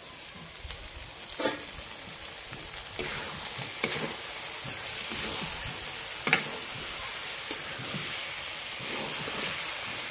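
Chopped taro stolons (kochur loti) frying in a metal kadai with a steady sizzle as a spatula stirs them. Four sharp knocks of the spatula on the pan come through, the loudest a little past the middle.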